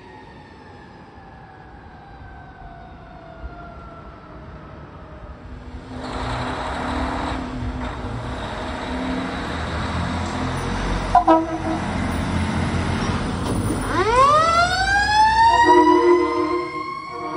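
Fire apparatus responding. First a siren tone slides down in pitch and fades. Then comes a loud truck engine rumble with a short horn blip about eleven seconds in. Near the end a siren winds up steeply in pitch, with a blast of the air horn over it.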